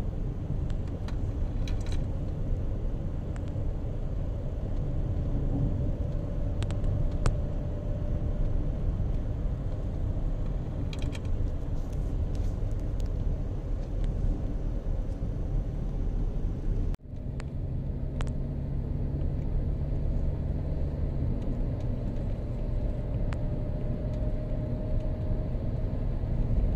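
Steady road and engine noise of a moving vehicle, a low rumble with a faint hum that slowly rises in pitch and a few light clicks and rattles. It breaks off abruptly about two-thirds of the way through and resumes at once.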